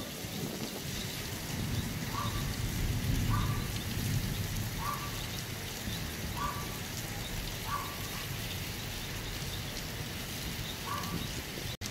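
Steady rain falling during a thunderstorm, with an animal's short call repeating about every second and a half.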